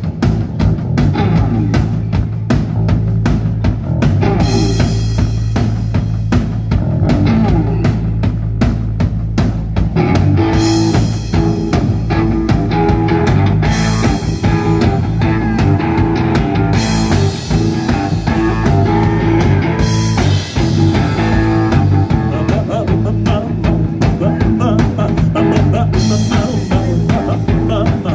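Live rock band playing: electric bass guitar, electric guitar and a drum kit, loud and continuous.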